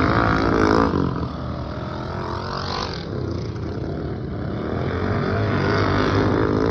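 Several modified racing lawnmower engines running hard as the mowers lap a dirt track, their pitch rising and falling. They are loudest about a second in, drop back, then build again toward the end as the pack comes around.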